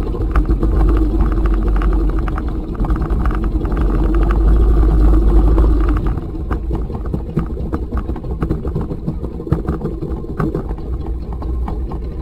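Tohatsu outboard motor running on a small inflatable boat, with water slapping and splashing against the hull. The low engine rumble drops in level about halfway through.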